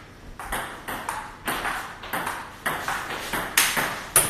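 Table tennis rally: the ball clicks off the paddles and the table in a steady run of hits, about two a second.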